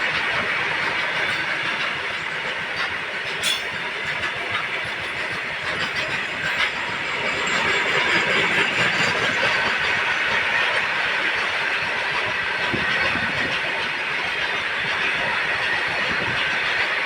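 Freight train running along the track: a steady rush of wagon wheels over the rails, with one sharp click about three and a half seconds in and the noise growing a little louder about eight seconds in.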